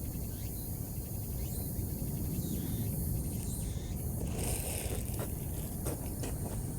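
Outdoor ambience: a steady low rumble with a faint high hiss and a few light clicks in the second half.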